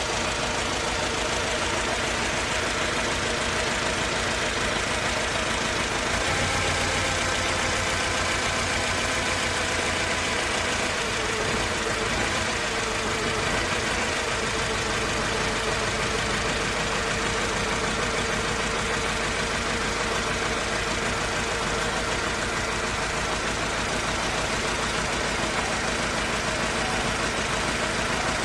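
Mercedes-Benz C200 four-cylinder petrol engine running at idle, under test for a misfire and rough idle that its owner says sounds as if it runs on only two or three cylinders.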